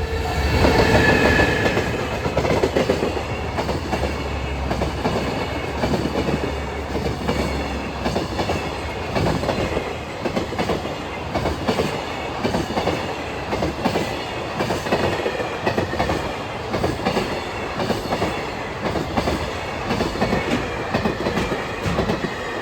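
Train passing at close range, its wheels clattering steadily over the rail joints. The noise is loudest in the first couple of seconds.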